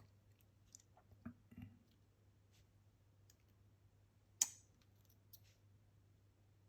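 Scattered light clicks and taps of tiny lock pins and parts being handled on a table, with one sharper click about four and a half seconds in.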